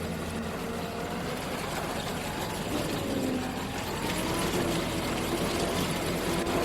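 Engine of harvesting machinery running steadily, its pitch drifting slightly up and down.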